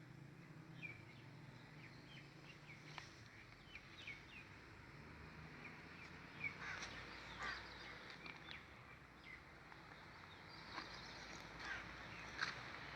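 Faint, scattered short chirps of small birds over a low steady hum.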